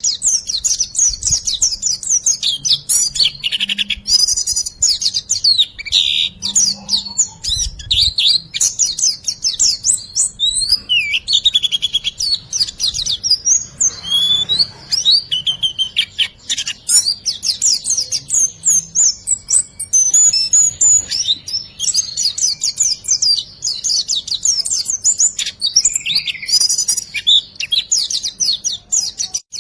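White-eye (pleci) singing a loud, fast run of high chirping 'riwik' trills in the riwikan style, almost without pause. This is the kind of recording used as a master song to tutor caged birds and to coax silent ones into singing.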